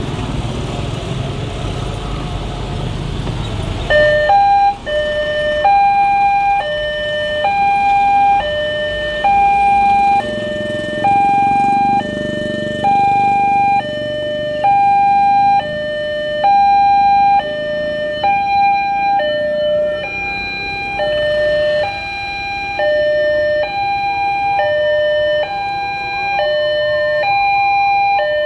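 Railway level-crossing warning siren sounding from about four seconds in: an electronic two-tone alarm alternating steadily between a higher and a lower note, each held just under a second, the warning that the crossing is closing for a train. Before it starts, a low road-traffic rumble.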